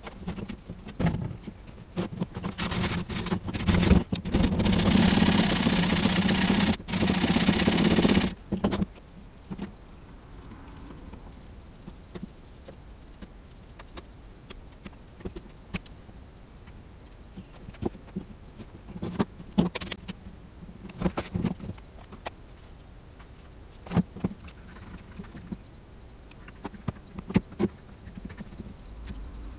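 An old oak high chair being pulled apart at its joints: a loud, noisy stretch of several seconds in the first third that stops abruptly, then quieter handling with scattered sharp knocks and clicks of wood.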